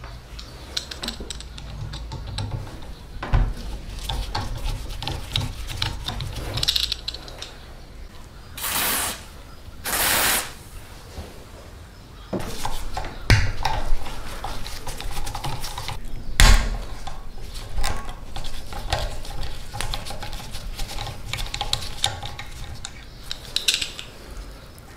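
Steel tools clicking and scraping on the rusty receiver of an old airgun as a screwdriver bit works at its seized screws, with a few sharp knocks. Two short spray hisses, about nine and ten seconds in, as penetrating oil is sprayed onto the rust.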